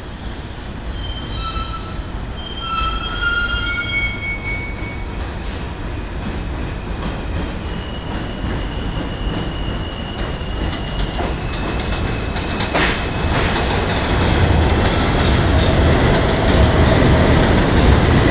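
R160A subway train pulling into an elevated station and braking to a stop. Its wheels squeal in short, high squeaks during the first few seconds. Then a steady high whine drops a step in pitch about halfway through, over a rumble that grows louder as the cars pass close, with a single metallic clank about 13 seconds in.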